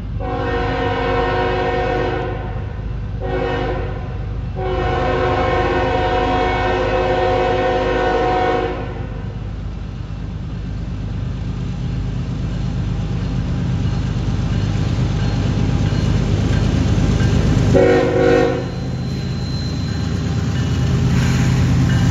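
Diesel freight locomotive horn sounding a long blast, a short one and a longer one, then a single short blast about eighteen seconds in. Under the horn is the low rumble of the approaching CN diesel locomotives, growing louder as the lead unit comes into view.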